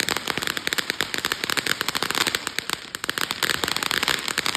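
A string of firecrackers going off: a fast, unbroken run of sharp cracks and pops, many to the second.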